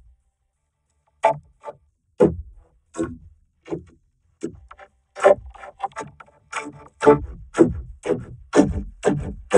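A cartoon character's voice vocoded into a synthesizer melody: a run of short separate syllables, each falling in pitch, slow at first and quickening about halfway through.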